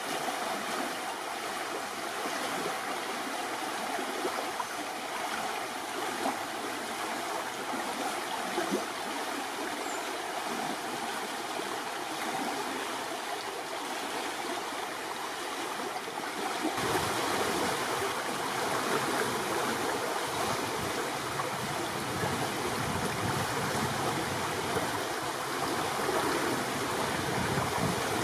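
Fast-flowing river rushing and rippling over shallow riffles, a steady wash of water. About 17 seconds in it becomes fuller and slightly louder.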